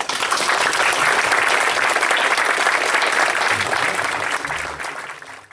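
Audience applauding. The clapping breaks out suddenly as the music ends, stays at a steady pitch and fades away near the end.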